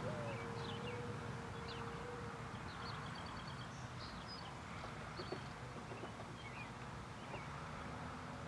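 The last of an electronic warning siren's steady tone fades out within the first two seconds. Small birds then chirp and trill over a low, steady rumble of distant road traffic.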